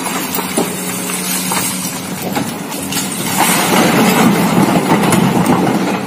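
Komatsu hydraulic excavator's diesel engine running steadily under load while it digs broken rock, with knocks and clatter of stone in the bucket. The noise grows louder a little past halfway as the rock is worked and dumped.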